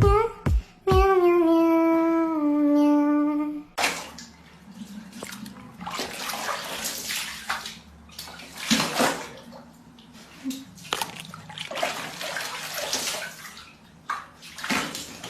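A few seconds of pitched music, then irregular swells of running and splashing water, rising and falling for the rest of the time.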